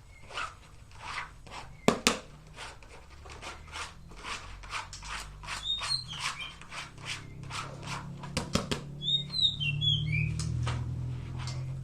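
Repeated short rubbing or scraping strokes, about two a second, with two sharp knocks about two seconds in. A caged songbird gives a few short high chirps around the middle and again near the end.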